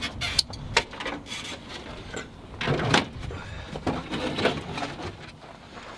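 Objects being picked up, moved and set down by hand: a scatter of knocks and clatters with rustling in between, the loudest about three seconds in.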